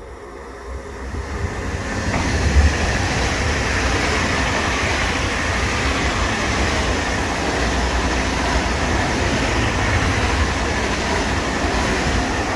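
A train passing close by on the station's through track: a loud, steady rush of wheels on rail that builds over the first two seconds, holds, and begins to fade at the end.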